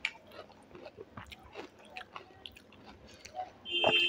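Close-miked chewing and mouth clicks of a person eating dahi bhalla, soft lentil dumplings soaked in yogurt. A brief steady tone sounds just before the end and is the loudest thing.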